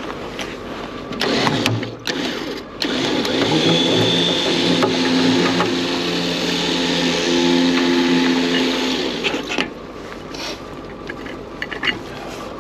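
Tow truck winch running for about six seconds, a steady mechanical whine as it reels in cable, then stopping abruptly. A few clanks and handling knocks come before it starts.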